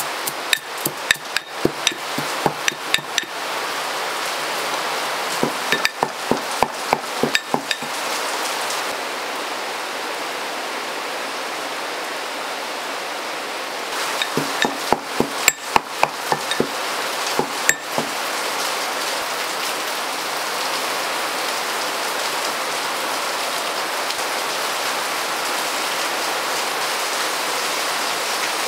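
Three runs of quick, sharp taps or knocks over a steady hiss; the hiss carries on alone through the second half.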